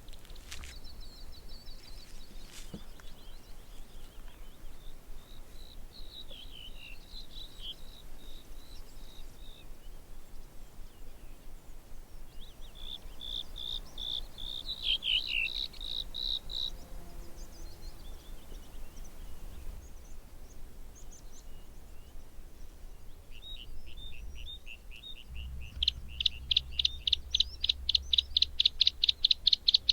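Bluethroat singing: scattered high, varied phrases, then from about 25 seconds in a loud, fast run of repeated notes, about seven or eight a second.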